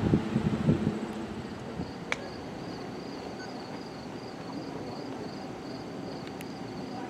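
Wind buffeting the microphone for about the first second, then an insect calling in a high, pulsing trill, about three pulses a second, over faint steady background noise. A single sharp click comes about two seconds in.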